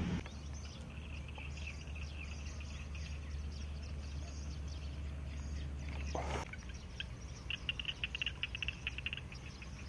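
Outdoor ambience of high-pitched animal chirps, with a rapid pulsed trill about two-thirds of the way in, over a low steady hum that stops about six seconds in, just after a brief rising sweep.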